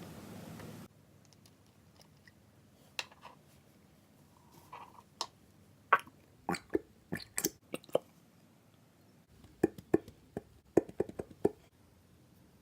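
Clear slime made with Elmer's color clear glue being squished and worked by hand, giving sticky pops and squelchy clicks in irregular clusters. A steady hiss stops suddenly about a second in.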